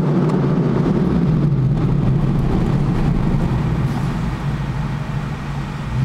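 Jeep SRT8's V8 running hard under acceleration through a new exhaust, heard from inside the cabin. The engine note drops back about four and a half seconds in and comes back on near the end.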